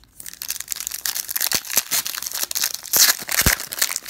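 Foil wrapper of a trading-card pack being torn open and crinkled by hand: a dense crackling that is loudest about three seconds in, with a low knock shortly after.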